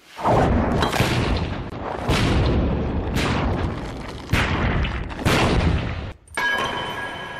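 Film gunshots from a heavy firearm: about six loud shots roughly a second apart, each with a long echoing tail. About six seconds in they stop, and a different sound with ringing tones takes over.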